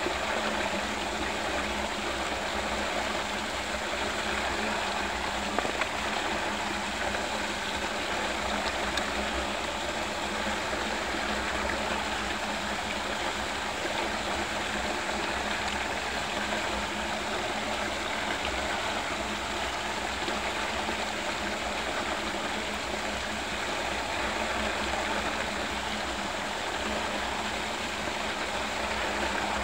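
Water rushing and churning steadily as a whirlpool vortex swirls down a drain hole, with a steady low hum underneath.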